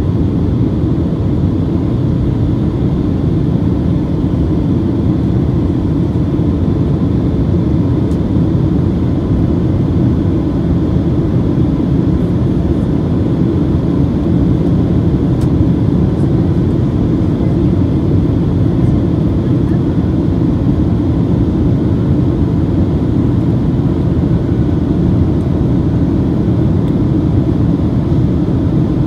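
Steady in-flight cabin drone of a Boeing 737-800, the rumble of its CFM56 turbofans and the airflow over the fuselage heard from a window seat over the wing, with a faint steady whine.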